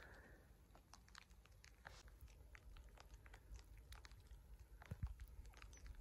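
Near silence, broken by faint, irregular crunching and ticking that fits footsteps in deep snow, with a low thump about five seconds in.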